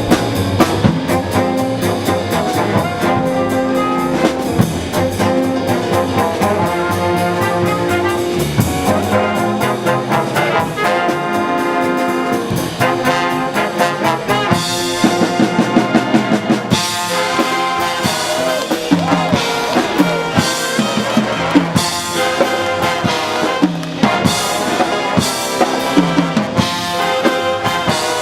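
High school jazz big band playing a swing number live: the trumpet and trombone sections hold chords over the drum kit. About halfway through the playing turns punchier, with cymbal crashes and short, accented brass hits.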